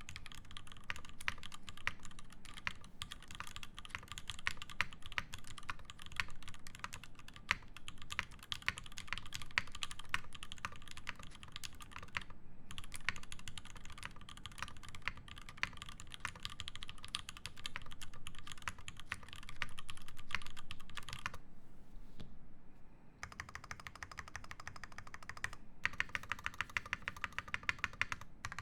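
Fast, continuous typing on an IRON180 mechanical keyboard with lubed Alpaca linear switches, a brass plate and GMK keycaps: a dense run of key strokes. The typing stops briefly about twelve seconds in and again for about a second and a half a little past twenty seconds.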